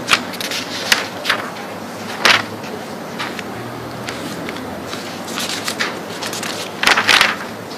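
Paper pages of a thick bound book being turned, several brief rustles with the longest and loudest near the end, over a steady low hum.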